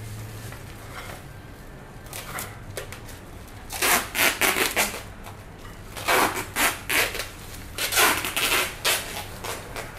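Packing tape being pulled off the roll and wrapped round a plastic bag of food, in three spells of short, loud rasps, with plastic bags crinkling.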